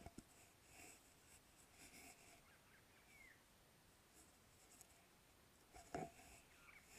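Faint scratchy rustling of a Norwegian Forest Cat's long fur and chin rubbing against a wooden stick close to the microphone, in soft strokes, with a sharper knock about six seconds in as she mouths the stick.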